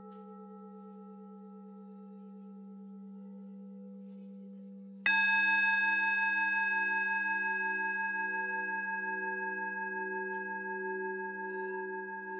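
Sustained bell-like ringing tones with a slow pulsing wobble. About five seconds in, a new, louder and higher tone is struck and slowly fades.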